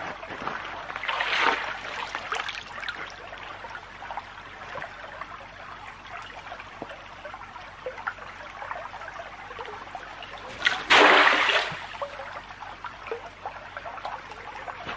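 Shallow creek water trickling and lapping close to a microphone at water level, with small drips and plinks. About eleven seconds in there is a short, loud splash.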